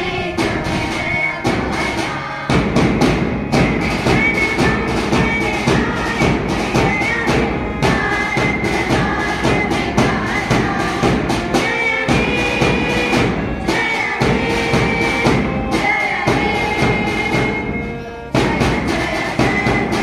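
School assembly music: a group of students singing in chorus to harmonium and a steady, rapid drum beat. The drums come in louder about two and a half seconds in, and the music breaks off briefly near the end before resuming.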